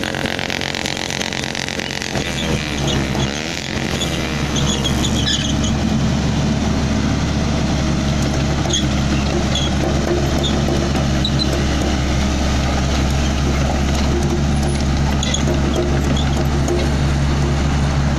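Sany SY55C mini excavator's Isuzu 4JG1 four-cylinder diesel running steadily. About two seconds in its note shifts, and from about four seconds on it runs louder, with a few faint high clinks on top.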